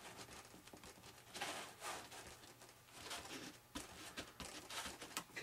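Faint rubbing and brushing strokes of hands smoothing fiberglass tape down onto a foam wing, a few short scrapes a second or so apart.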